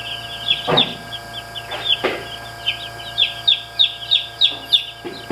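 A brooder full of Cornish cross broiler chicks peeping continuously: many overlapping short, high, falling cheeps. A couple of soft knocks come about one and two seconds in.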